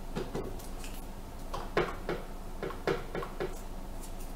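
A quick series of light taps and knocks on a tabletop, about seven in under two seconds, as hands press paper craft pieces down and handle the glue.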